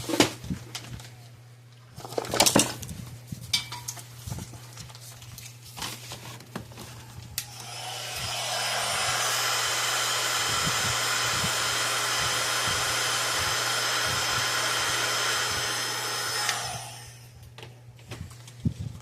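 Heat gun switched on about eight seconds in, running steadily with a rushing blower noise for about nine seconds, then switched off. It is used to shrink heat-shrink tubing. Before it come scattered handling clicks and knocks.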